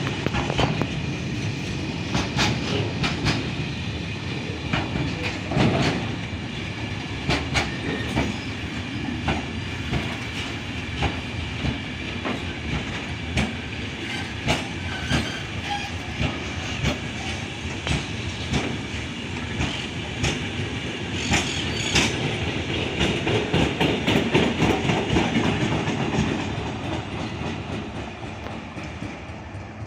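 A train running past on the rails, its wheels clacking over the rail joints again and again, fading away over the last few seconds.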